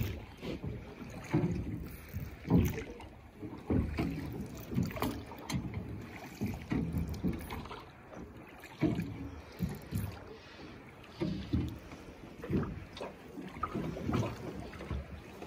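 Small fishing boat under way on a river just after pushing off: irregular low knocks and splashes of water against the hull, with some wind on the microphone.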